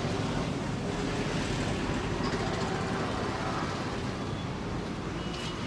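Steady hum of road traffic passing by.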